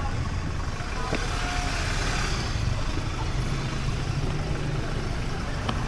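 Street traffic of motorbikes and cars: a steady low rumble of engines and tyres, swelling about two seconds in as traffic goes by.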